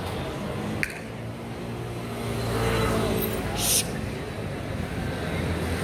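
Motor scooter engine passing through the underpass below, swelling and then fading, over a murmur of crowd voices. There is a sharp click about a second in and a short hiss just past the middle.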